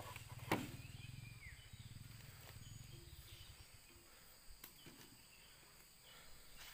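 Quiet outdoor ambience with one sharp snap or click about half a second in and a few fainter ticks later, a brief faint chirp, and a low hum that fades away after about three seconds.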